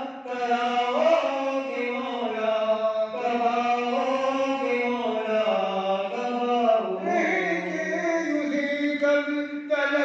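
Male chanting of an Urdu munajat, a devotional supplication, in long melodic phrases with held notes that slide between pitches.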